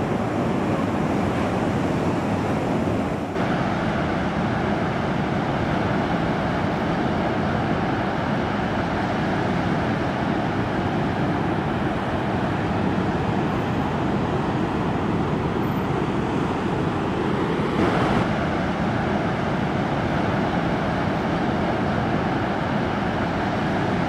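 Ocean surf washing on a beach, with wind noise on the microphone. A steady wash of noise that shifts slightly in tone about three seconds in and again around eighteen seconds.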